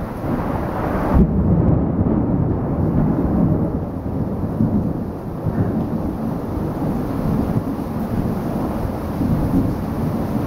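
Heavy tropical rain downpour with gusting wind, a dense, low rumbling noise that surges and eases throughout. A brighter hiss in the first second drops away abruptly.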